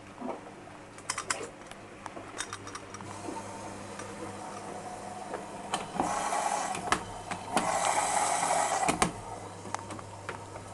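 Privileg washing machine in its rinse cycle: a steady low hum with scattered mechanical clicks, then two rushing bursts of about a second each a little past the middle.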